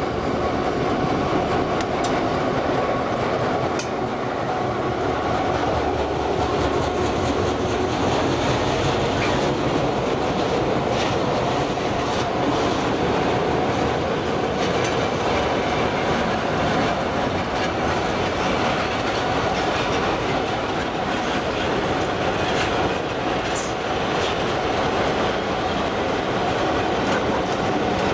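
A long freight train of open wagons rolling past close by, behind a GM diesel locomotive, with a steady rumble and clickety-clack of the wheels over rail joints and a few sharper knocks.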